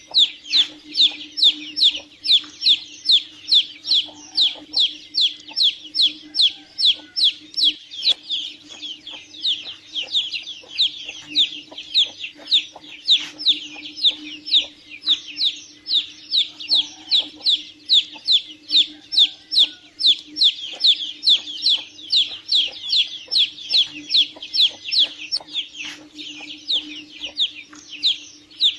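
Domestic chicken chicks peeping: a dense, continuous run of short, high, downward-sliding peeps, about three a second and overlapping, over a steady low hum.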